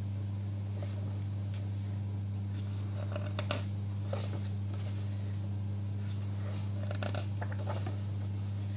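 Pages of a printed art catalogue being turned by hand, with a brief papery rustle about three seconds in and again about seven seconds in, over a steady low hum.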